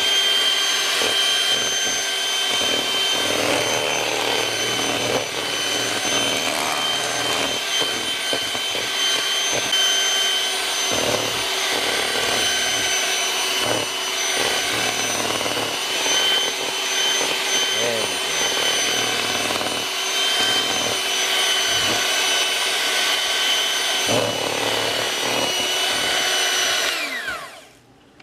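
Electric hand mixer running steadily with an even whine, its beaters whipping heavy cream in a stainless steel bowl until the cream is nearly at stiff peaks. Near the end the motor winds down with a falling pitch and stops.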